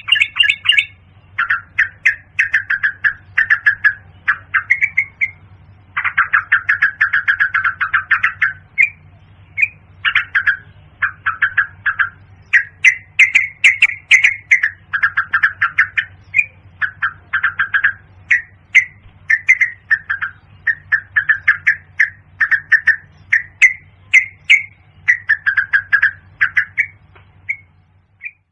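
Yellow-vented bulbul calling: phrases of rapid short notes, one after another with brief pauses, the longest about two seconds long some six seconds in. A steady low hum runs underneath.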